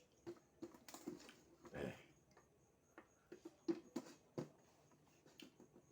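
A person chewing food close to the microphone: irregular wet clicks and smacks of the mouth, with a few short louder bursts.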